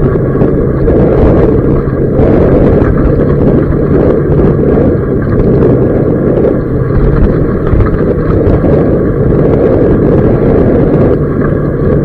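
A vehicle engine running steadily as it drives along a rough dirt road, mixed with heavy wind rumble on the microphone.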